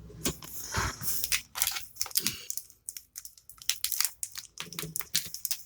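Foil wrapper of a Magic: The Gathering booster pack being torn open and crumpled by hand: a run of irregular crinkling crackles.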